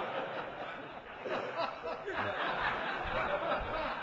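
Audience laughing and chuckling, many voices at once.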